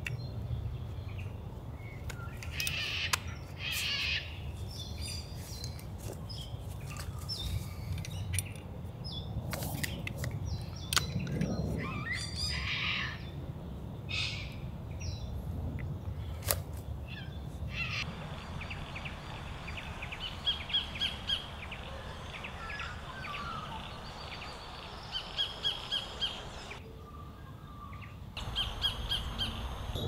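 Sacred kingfisher calling: runs of about five short, sharp repeated notes, twice in the second half and again near the end. Other scattered bird chirps and a few sharp clicks come earlier, over a low steady rumble.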